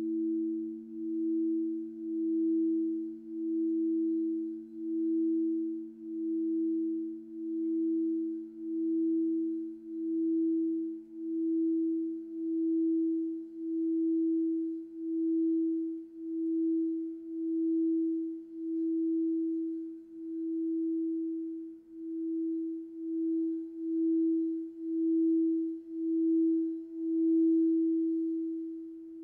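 Quartz crystal singing bowl rubbed around its rim with a wand, giving one steady pure tone that swells and dips a little more than once a second as the wand circles, the pulsing quickening near the end. A second, lower tone fades away underneath.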